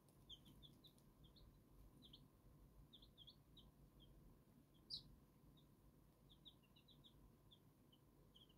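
Silver Laced Wyandotte chicks peeping faintly, many short high cheeps scattered throughout, with one louder cheep about five seconds in.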